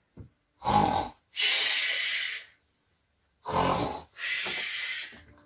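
A person snoring twice, about three seconds apart. Each snore is a short snort followed by a long hissing breath out.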